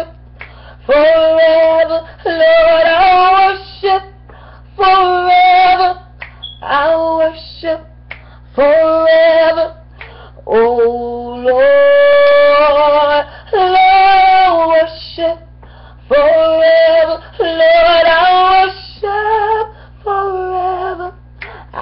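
A woman singing a worship melody unaccompanied, in phrases of long held notes with short breaks for breath between them, one note held longer near the middle. A steady low electrical hum runs underneath.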